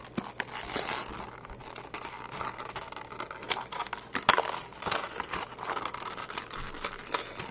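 Clear plastic blister packaging crinkling and crackling as it is handled, with irregular small clicks and snaps; the sharpest snap comes about four seconds in.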